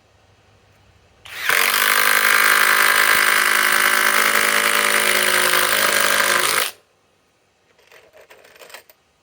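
Flex compact cordless impact driver hammering steadily for about five seconds, driving a 4-inch Grip-Rite screw. It starts about a second in and cuts off suddenly, followed by a few faint clicks.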